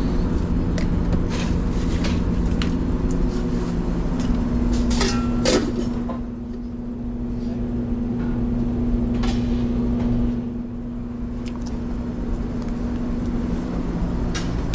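Steady hum of restaurant kitchen machinery, with several held low tones and another low tone joining about four seconds in, under the light clicks and rustles of food being handled.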